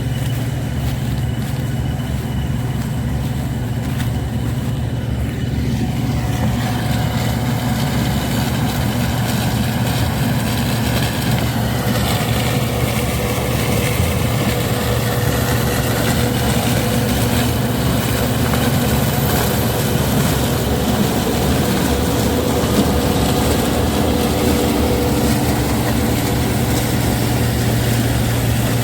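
CLAAS Dominator combine harvester running steadily while harvesting corn: a constant low engine drone, with a fainter higher machinery whine that dips and rises in pitch partway through.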